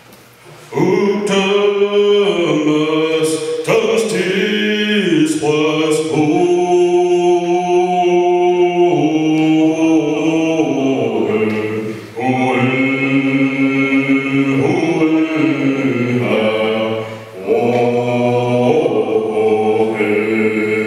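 A group of voices singing together, a slow chant-style song in ʔayʔaǰuθəm with long held notes. It starts about a second in and pauses briefly twice, about twelve and seventeen seconds in.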